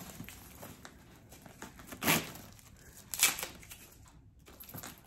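Protective wrapping being peeled and torn off a handbag's metal chain strap: soft rustling with two loud crinkling tears, about two and three seconds in.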